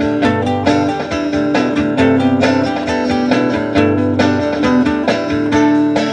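Guitar playing an instrumental song intro, picked and strummed notes in a steady rhythm.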